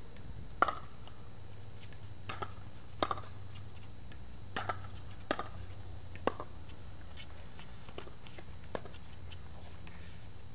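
Pickleball rally: sharp pops of paddles striking the plastic ball, with bounces on the hard court. The pops come irregularly, a second or so apart, some in quick pairs, and the loudest is about half a second in.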